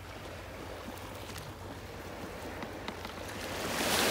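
Sea washing against the rocks of a harbour wall, with a wave surging up in a swelling hiss near the end.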